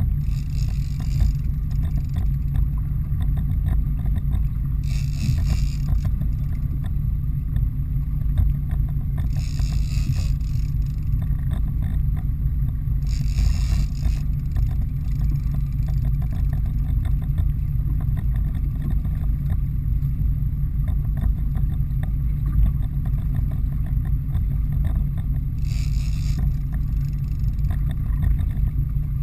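A boat's engine running steadily with a low rumble, joined every few seconds by a short hiss lasting about a second.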